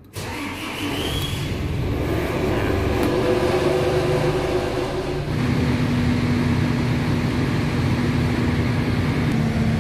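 MAN TGA 19.400 truck's inline-six diesel engine starting up and running, heard from the cab: a short rising whine about a second in as it catches, then a steady idle that settles about halfway through.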